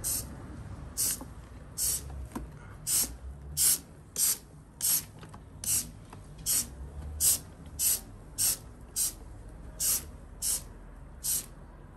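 Plastic trigger spray bottle of grease remover being pumped over and over: a regular run of short hissing squirts, a little more than one a second.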